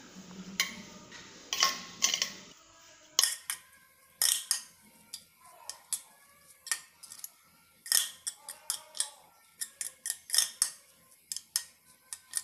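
A utensil clinking and scraping against a stainless steel plate while grated boiled egg and spice powders are mixed in it: irregular sharp clicks and scrapes, about one or two a second. A faint low hum is heard for the first couple of seconds.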